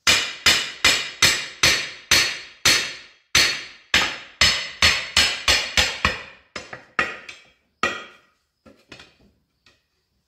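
Hammer blows ringing on the steel of a Firestone RH-5 split-rim truck wheel while its parts are being driven into place: a rapid run of hard strikes, about two to three a second, for about six seconds, then fewer and lighter taps toward the end.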